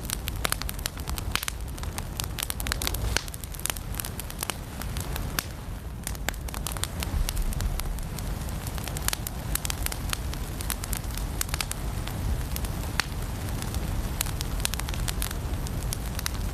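Firewood burning in a fireplace, crackling and popping: many irregular sharp snaps over a low, steady rumble.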